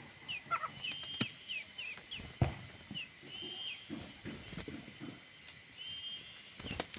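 Birds calling with short, repeated high whistles, some held level and some dropping in pitch, with a few sharp knocks, the loudest about two and a half seconds in.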